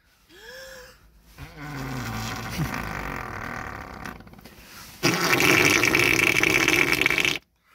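Fart-like noises made by a person with hands held to the mouth: a short rising-and-falling squeak, then a longer buzzing blow, then a loud rasping one from about five seconds in that cuts off suddenly.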